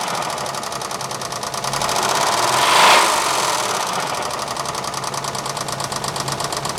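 Saab 3.0L GM V6 engine running with a rapid, even knocking. It swells once, peaking about three seconds in, then settles back to idle with the knock still plain. The owner takes the knock for a bad lifter and rod knock.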